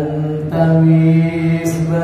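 A man singing sholawat, an Islamic devotional song, solo and unaccompanied, holding long ornamented notes with a change of note about half a second in.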